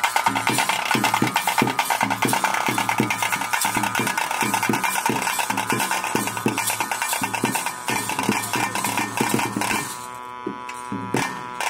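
Tulu bhuta kola ritual music: a fast, steady drumbeat with a reed pipe holding long notes over it. About ten seconds in the drumming drops away, leaving the pipe's held notes.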